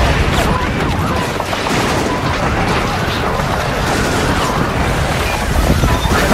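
Battle-scene soundtrack: a steady, loud din of gunfire and explosions, with shouting voices mixed in.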